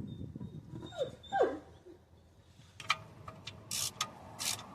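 A dog whimpers, two short whines falling in pitch about a second in, followed by several short clicks and bursts of hiss in the second half.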